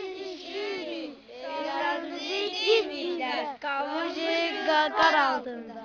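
Several young boys singing together in a high, childlike chorus, in short phrases with brief breaks between them.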